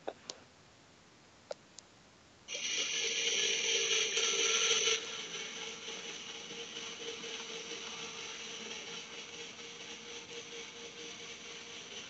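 Claw machine's small geared motor running with a steady gear whir. It starts about two and a half seconds in, is loudest for the first couple of seconds, then runs on steadier and quieter. A few small clicks come before it.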